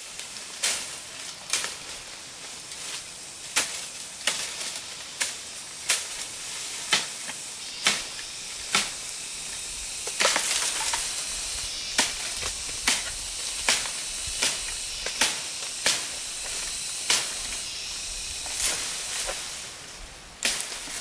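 A steady series of sharp knocks or strikes, about one a second, with a stretch of hiss about halfway through.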